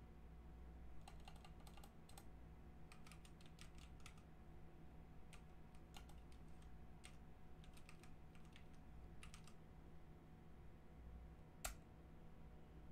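Faint computer keyboard typing: short runs of keystrokes with pauses between them, and one louder key press near the end, the Enter key sending the command.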